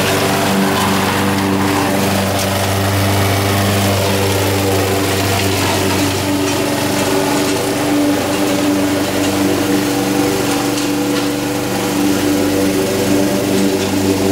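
Honda HR194 push lawn mower's single-cylinder four-stroke engine running steadily under load as it is pushed across the lawn cutting grass.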